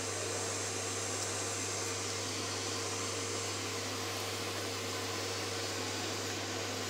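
Steady whirring hum of a screen-printing table's vacuum bed, its suction motor running to hold the paper flat through the small holes in the bed.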